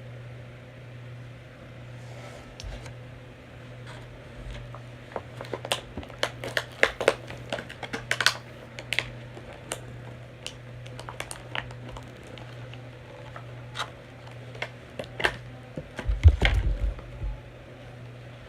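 Irregular clicks, taps and scratches of hands working at an action figure's plastic and cardboard packaging, busiest a few seconds in and again later, with a low thump near the end. A steady low hum runs underneath.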